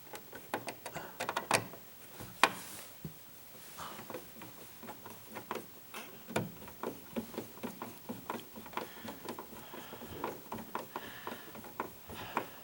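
Single-pole light switch being handled and seated into a wall switch box: a run of small clicks and taps, with two sharper knocks about one and a half and two and a half seconds in.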